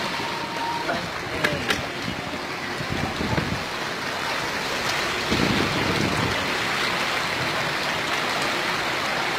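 Heavy rain falling as a steady hiss.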